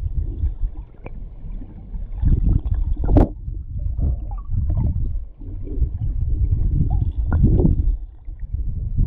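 River current heard through a submerged action camera's housing: a muffled, low, gurgling rumble of water, with irregular knocks, the sharpest about three seconds in.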